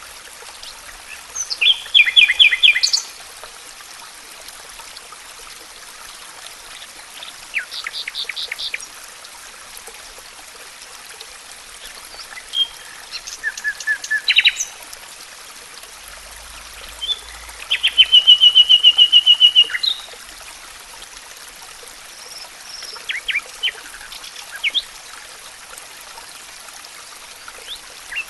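Songbirds singing in separate short phrases, the loudest a rapid trill of repeated notes lasting about two seconds, over a steady hiss of running water.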